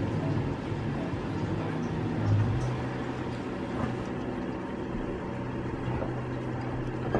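Steady low mechanical hum with a brief louder swell about two seconds in.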